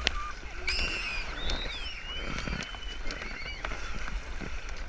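Paddles splashing and knocking against an inflatable kayak, with wind rumbling on the microphone. High, gliding shrieks sound in the distance for the first few seconds.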